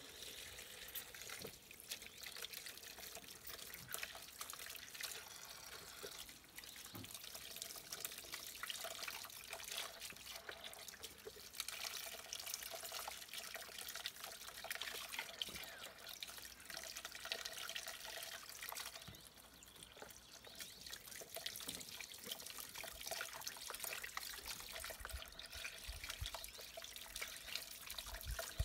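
Water trickling from a hose into a plastic basin and splashing as vegetables are washed in it by hand, with many small irregular splashes over a steady trickle.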